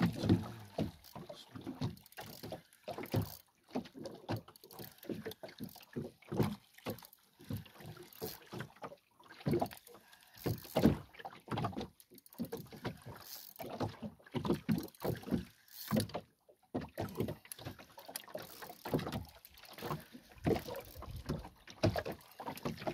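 Water slapping and lapping against the hull of a small drifting fishing boat, in irregular short splashes with quiet gaps between them.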